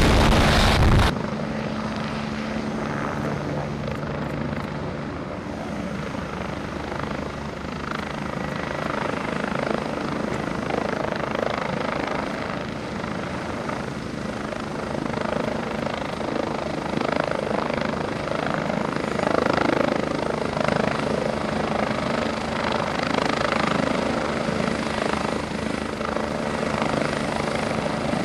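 UH-72 Lakota twin-turbine helicopter. Loud, close rotor and engine noise cuts off about a second in, then a steady rotor beat and engine noise as the helicopter hovers low to land, growing a little louder near the end.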